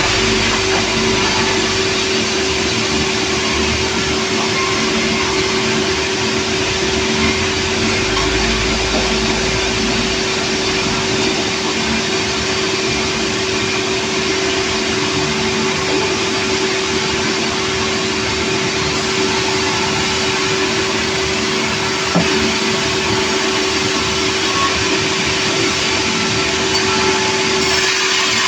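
Portable sawmill running steadily, a constant hum under a dense whirring noise, with one small click about 22 seconds in.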